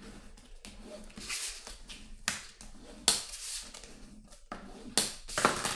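Bone folder scoring and creasing the folds of a cardstock envelope: a run of dry scraping strokes across the paper, with sharper ones starting about three and five seconds in.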